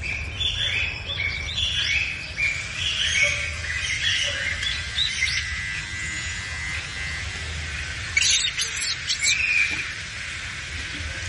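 Birds chirping outdoors, a quick series of short repeated notes at about two to three a second, then a sharper burst of chatter about eight seconds in. A steady low rumble runs underneath.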